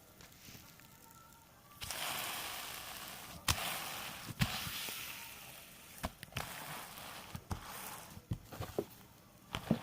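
Slime being squished and kneaded by hand: a wet, crackly hiss that starts about two seconds in, with sharp clicks and pops of trapped air bursting scattered through it.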